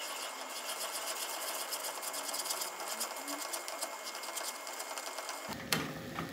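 Plastic spoon stirring a thickening rice-flour paste fast in a nonstick pan, a rapid, even clatter of spoon against pan, with a sharper knock near the end. The paste is nearly cooked through, being beaten smooth of lumps as it sets thick.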